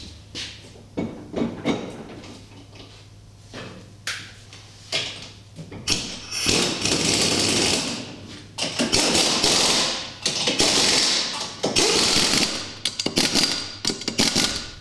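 Scattered knocks as a golf cart wheel is hung on the hub, then from about six seconds in a pneumatic impact wrench runs in several long bursts, hammering the wheel's lug nuts tight.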